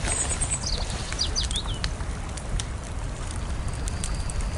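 Outdoor ambience: a steady low rumble with a few small birds chirping in the first two seconds, and scattered light ticks.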